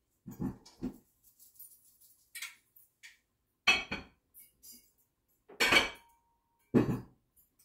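Dishes and kitchenware being handled and set down: a run of separate clinks and knocks, the loudest about four, six and seven seconds in.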